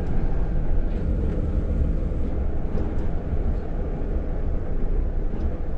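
Steady low rumble inside the cab of a Hino heavy tractor-trailer truck: diesel engine and road noise while driving.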